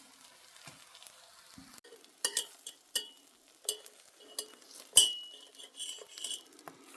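Metal utensils clinking against a dish: a handful of sharp clinks, some with a brief ring, the loudest about five seconds in.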